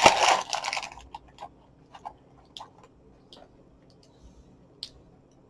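Someone chewing a mouthful of crunchy flaked cereal: loud crunching for about the first second, then quieter, scattered crunches.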